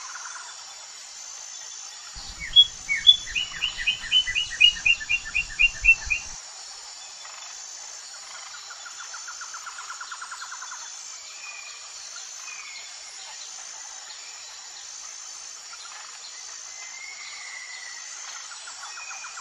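Birds calling over a steady, high insect drone: a loud run of about a dozen quick, falling chirps from about two seconds in to six seconds, then scattered softer chirps and a buzzy trill.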